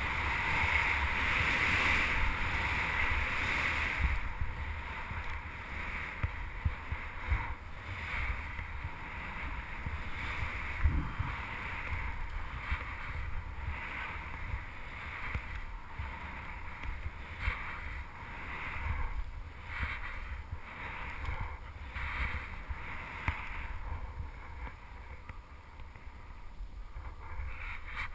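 Skis running through deep powder snow: a rushing hiss that swells and fades with each turn in a steady rhythm, loudest in the first few seconds. Wind buffets the helmet-mounted microphone underneath.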